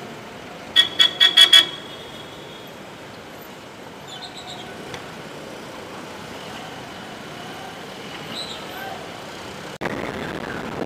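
A vehicle horn tooted five times in quick succession, high-pitched, over steady traffic and riding noise.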